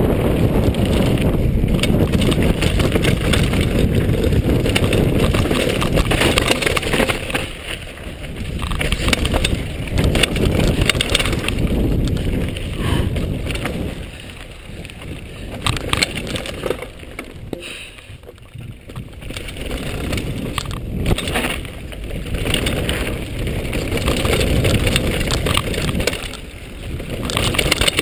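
Mountain bike descending fast on a gravel and dirt trail: tyres crunching over loose gravel and the bike rattling over bumps, under heavy wind buffeting on a chest-mounted action camera's microphone. The noise eases for several seconds around the middle, then builds again.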